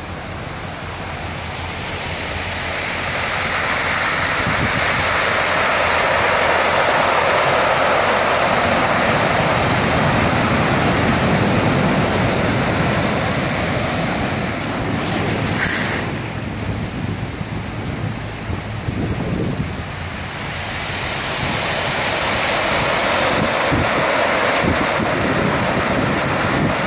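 Sea surf breaking and washing up a dark sand beach: a continuous rush of foaming water that swells as each wave comes in. It is loudest through the first half, eases for a few seconds past the middle, then builds again.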